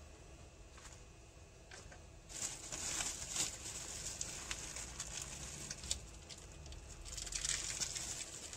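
Plastic wrapping crinkling and rustling as a new bearing is unwrapped by hand. The rustling starts about two seconds in, with a few faint clicks before it.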